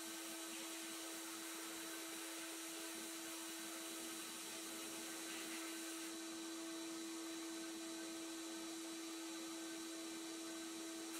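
Abrasive blast cabinet: a steady hiss of compressed air and grit from the blast nozzle, stripping rust off a pressed-steel toy airplane wing, with a steady hum underneath.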